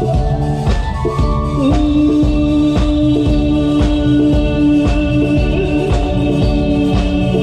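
Live band playing: a drum kit keeping a steady beat under electric bass, with a long held note coming in about two seconds in.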